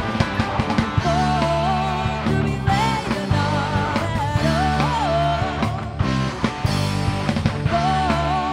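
Rock music with a wavering lead melody over steady bass notes and drums.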